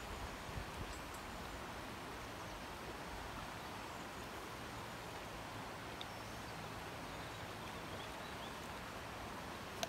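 Steady outdoor background hiss with faint rustling and a few small clicks.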